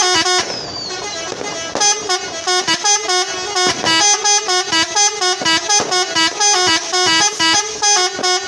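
Truck telolet multi-tone horn playing a quick melody of short notes in rapid succession, with a brief hissing stretch about half a second in.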